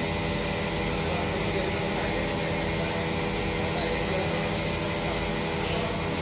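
Steady mechanical hum, an even noise with several low steady tones that holds the same throughout.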